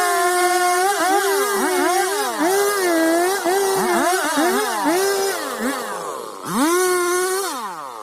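Two-stroke chainsaw engine running at high revs, its pitch dipping and climbing back again and again, then winding down and fading near the end.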